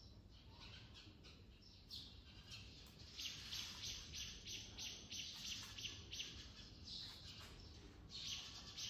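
Faint chirping of small birds: a quick run of short high chirps, about three or four a second, strongest from about three seconds in to about seven seconds, with scattered softer chirps around it.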